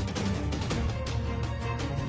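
Background music with a fast, steady percussive beat over low held tones.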